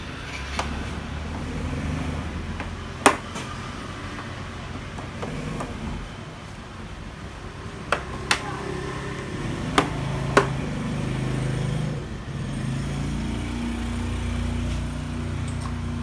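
Sharp clicks and knocks from hands handling the flat-panel TV's plastic and metal frame: one loud click about three seconds in, then four more in quick succession a little past the middle. A low steady rumble runs under them.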